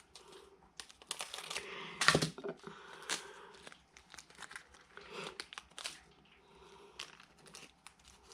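Small plastic bags of diamond-painting drills crinkling and rustling as they are handled, with irregular sharp crackles and ticks, the loudest about two seconds in.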